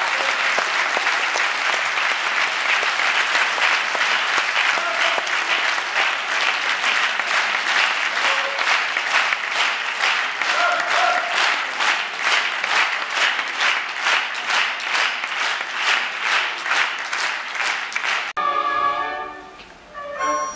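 Theatre audience applauding a ballerina's bow, the clapping falling into a steady rhythm in unison about halfway through. Near the end it cuts to orchestral music starting the next dance.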